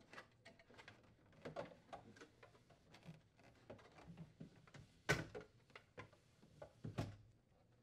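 Faint, irregular plastic clicks and creaks as a refrigerator's plastic freezer air duct is worked loose and pulled out of the freezer liner, with two sharper clicks in the second half.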